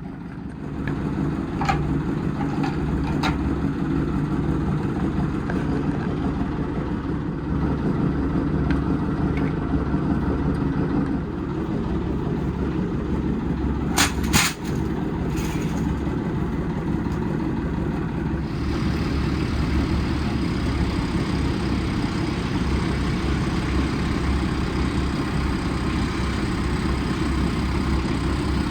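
Diesel engine running steadily with a low rumble, with a couple of sharp knocks about halfway through.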